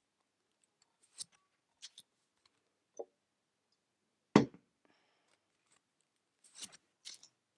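Tarot cards being handled and laid down one at a time: a few short swishes of card against card and a sharper tap about halfway through.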